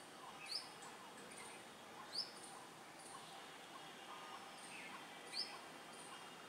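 Birds calling: three short, sharp upward-sweeping chirps stand out about half a second, two seconds and five seconds in, over a string of thin, high repeated notes.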